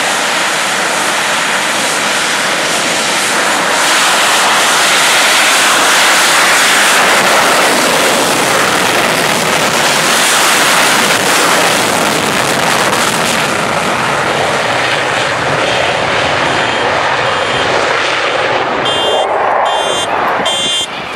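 English Electric Lightning F6 jets' twin Rolls-Royce Avon turbojets running as the aircraft taxi, loudest in the middle as one passes close by. A pulsing electronic beeping starts near the end.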